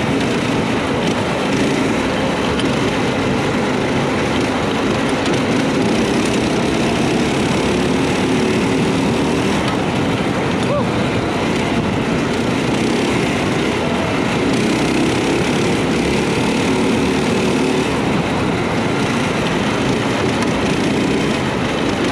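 The four-engine go-kart's four small engines (848cc combined) running steadily under throttle as the kart drives, heard from on board.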